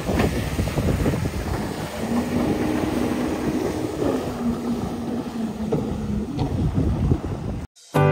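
Motorized watercraft running at speed over the sea, engine drone mixed with spray, water rush and heavy wind buffeting the microphone; a steady engine tone holds from about two seconds in to six and a half. Near the end everything cuts off suddenly.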